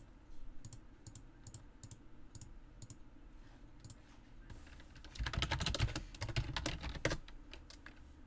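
Computer keyboard typing: scattered single keystrokes at first, then a quick flurry of keys about five seconds in that lasts some two seconds, over a faint low hum.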